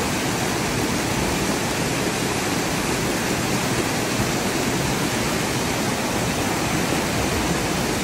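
Water pouring over a small stepped cascade into a shallow pool: a steady, even rushing.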